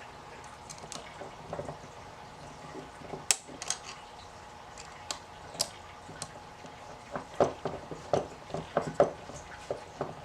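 Small, sharp clicks and clinks of a hand tool working a screw as the last fastener of an assembly is tightened. They come singly and irregularly at first, then in a quicker run of clicks a few seconds before the end.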